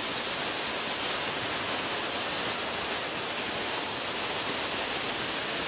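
Glass-bottle forming machines on a factory line running: a steady, even hiss with no rhythm or tone in it.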